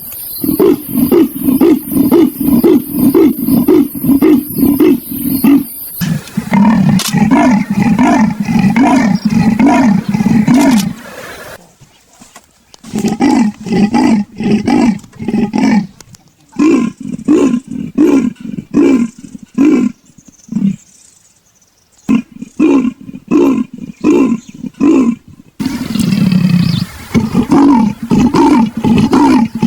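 Leopard giving its sawing call: trains of rhythmic grunts, about three a second, in several bouts with short pauses between them.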